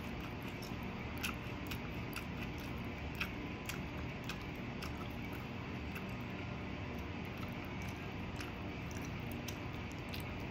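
A person chewing fried adobo and eggplant close to the microphone, with many small wet clicks and smacks scattered through, over a steady low background noise.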